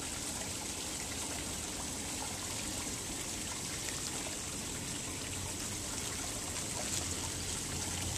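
Steady trickle of running water at a garden fish pond.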